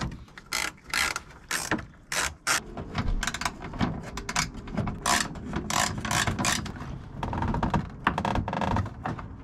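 Hand tools clicking and rattling in quick, irregular strokes as a repaired fiberglass front lip is fastened onto a Mazda RX-7.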